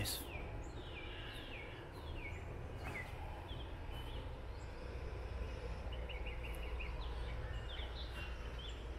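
Birds chirping outdoors, many short falling chirps scattered throughout, over a steady low background rumble.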